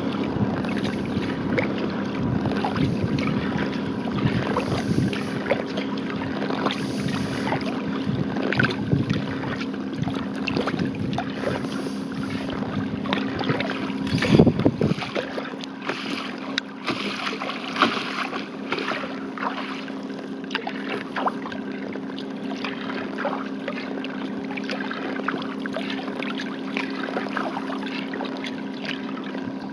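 Paddling a skin-on-frame kayak: the wooden paddle blade dips and drips, with small splashes and water running along the hull. Wind buffets the microphone, and a steady low hum runs underneath. A loud low thump comes about halfway through, after which the low rumble eases.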